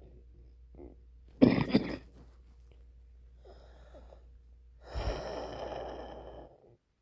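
A man's wheezing breaths: a sharp, loud burst of breath about a second and a half in, a faint breath a little later, and a long wheezing breath from about five seconds that stops suddenly near the end. The wheeze comes from his throat.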